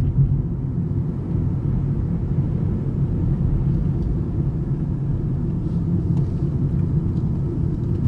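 Steady low rumble of a car's engine and tyres, heard from inside the cabin as it drives slowly along a winding road.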